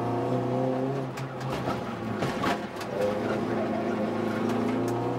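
Rally car engine heard from inside the cabin, revving up under acceleration. It drops off for a moment a little over a second in, with a few sharp knocks, then climbs in pitch again.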